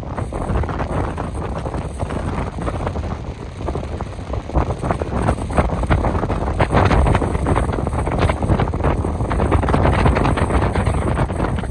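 Wind buffeting the microphone in strong, uneven gusts, with surf breaking on the beach underneath. The gusts grow louder about halfway through.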